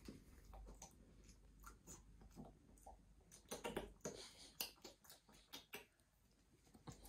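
Near silence with faint mouth sounds from someone tasting beer from a small glass: scattered small sips and lip smacks, a few close together about halfway through.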